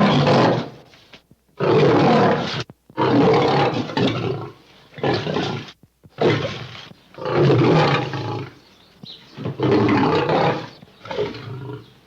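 Cougar and bear sound effects: a series of about eight roars and growls, each lasting a second or so, separated by short pauses.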